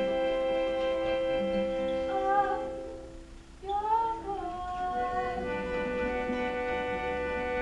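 Live indie band playing: acoustic guitar with a woman singing long held notes. The music drops away briefly about three seconds in, then her voice slides back in and the held notes resume.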